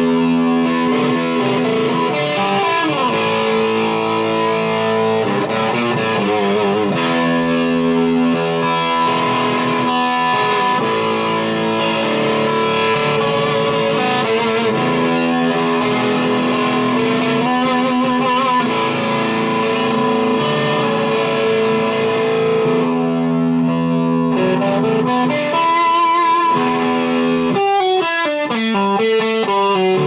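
Electric guitar played through an RHL Pedalworx Buzz Bomb high-gain fuzz pedal: thick, distorted sustained chords and held notes with vibrato and string bends, and a quick run of notes near the end.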